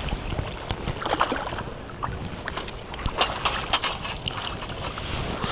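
Wind on the microphone with a steady low rush, and scattered light clicks and knocks from a pole angler handling his pole and landing net while playing a fish.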